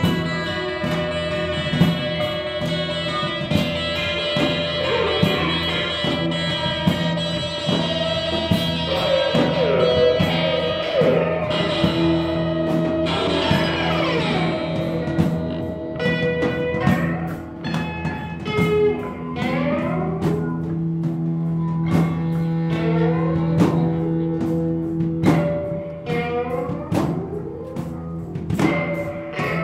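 Live rock band playing: guitars with sliding, bending notes over a steady held low note, and drums striking throughout.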